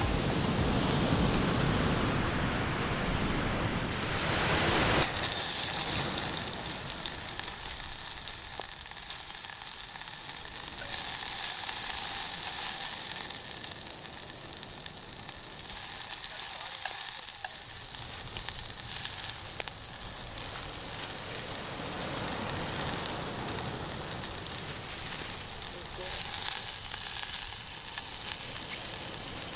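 Food sizzling and frying in a hot pan over a campfire, a steady crackling hiss that sets in about five seconds in after a lower, fuller sound.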